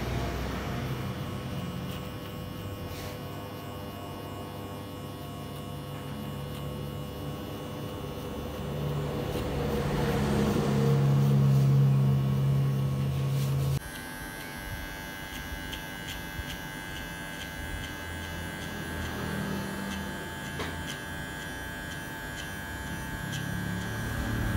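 Electric hair clippers buzzing steadily as they cut a fade up the back and sides of the head, growing louder for a few seconds as the blade works in close. About halfway through the sound switches abruptly to a different clipper with a higher-pitched hum, trimming behind the ear.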